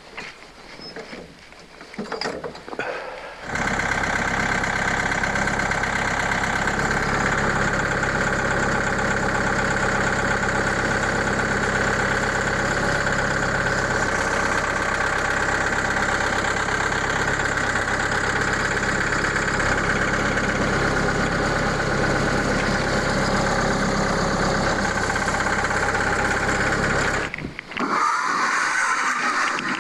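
A portable band sawmill's engine running steadily at constant speed. It comes in abruptly about three and a half seconds in, after a few quiet knocks, and cuts off suddenly near the end.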